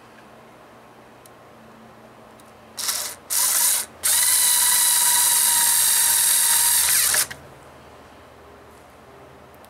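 Cordless electric screwdriver with a P1 bit driving a small number-four screw: two short bursts of its motor about three seconds in, then a steady whine for about three seconds that stops abruptly.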